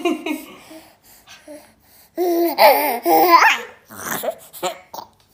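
Baby laughing as a wire scalp massager is worked over his head: a long burst of giggling laughter about two seconds in, followed by a few short giggles.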